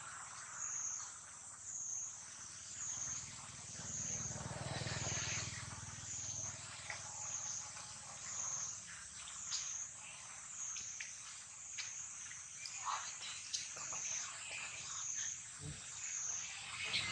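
Steady high-pitched chorus of insects, swelling and fading evenly about one and a half times a second, with faint scattered clicks and rustles.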